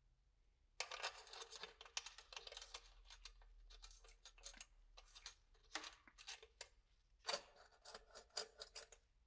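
Small metal clicks and scrapes as bolts with washers are threaded by hand into a motorcycle silencer's stainless steel mounting bracket, which is only lightly screwed on at this stage. The sound comes in quick, irregular runs, starting about a second in, with short pauses.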